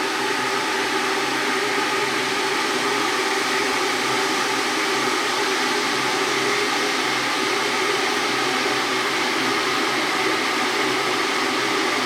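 Electric water heater running as it heats water, a steady rushing noise with a faint hum in it.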